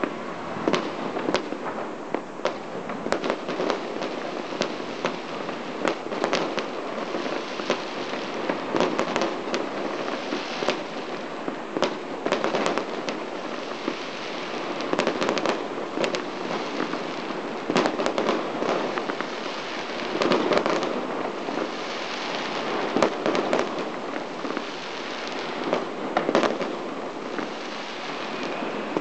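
Fireworks display: a dense, unbroken barrage of bangs over constant crackling, with heavier clusters of reports every few seconds.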